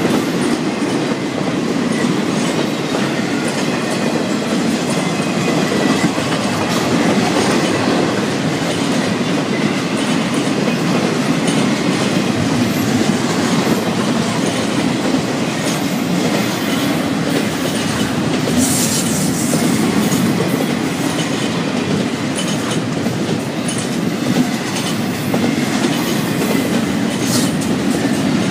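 Intermodal freight cars of a Florida East Coast Railway train rolling past close by: the steady rumble of steel wheels on rail, with scattered clicks over the rail joints.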